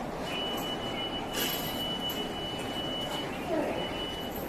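Ambient noise of a station concourse open to the street, with a steady high-pitched tone that holds for about three seconds, breaks off briefly and comes back near the end.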